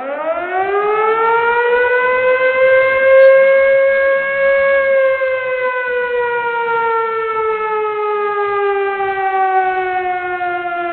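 Civil defense siren winding up quickly to a wail in the first couple of seconds, holding, then gliding slowly down in pitch.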